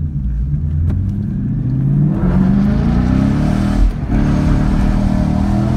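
2015 Ford Mustang GT's 5.0-litre V8 through a Ford Racing exhaust, heard from inside the cabin, accelerating hard. The engine note climbs for a few seconds, breaks off briefly about four seconds in at an upshift, then climbs again from a lower pitch.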